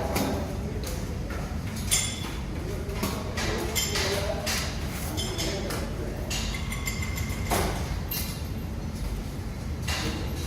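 Scattered knocks and clinks over a steady low hum, with faint voices in the background.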